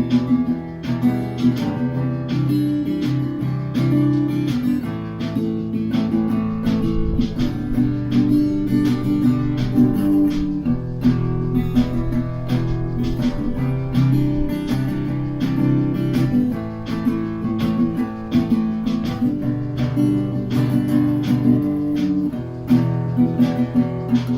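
Acoustic guitar music, strummed and picked at a steady rhythm.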